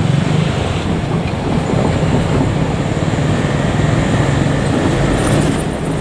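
Diesel engines of a two-car KiHa 47 railcar set running as the train moves along the track: a steady low drone with rail noise.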